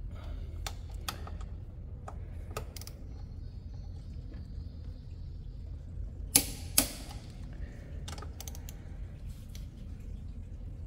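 Scattered light metallic clicks and taps of brake parts and hand tools being handled as motorcycle front brake pads are refitted, with two sharper clicks about six and a half seconds in.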